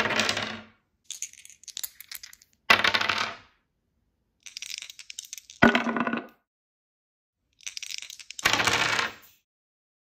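Two dice rolled onto a backgammon board: four quick tumbling clatters, each under a second, about three seconds apart. Before each of the last three comes a lighter, higher clicking rattle.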